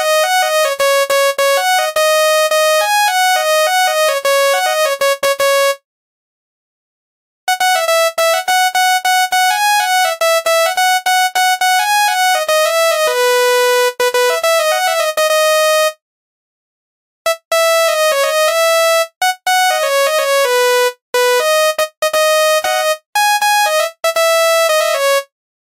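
Tune played on a telolet basuri bus horn: a loud, bright melody, one note at a time, of short notes stepping up and down, pausing twice for over a second.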